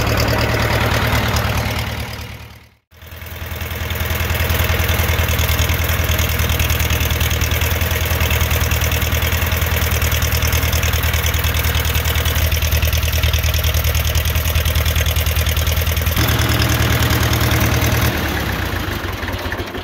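John Deere 2120 tractor engine running steadily with an even pulsing beat, with a brief break about three seconds in. Its note shifts about sixteen seconds in and again near the end.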